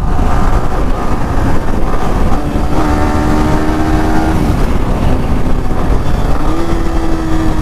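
Yamaha R15M single-cylinder 155 cc engine running at a steady cruising speed under heavy wind noise on the microphone. The engine's steady drone comes through clearly in two stretches of about two seconds each.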